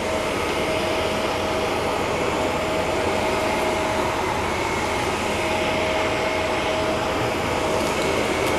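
Shark vacuum cleaner running steadily while vacuuming carpet: an even rushing noise with a faint steady whine.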